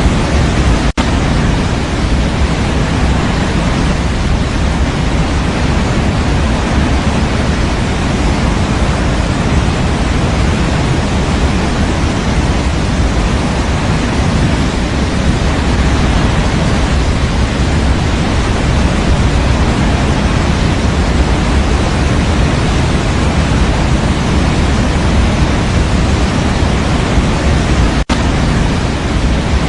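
Steady synthetic white noise for baby sleep: an even, deep rushing hiss, stronger in the bass like pink noise. It cuts out for an instant twice, about a second in and near the end.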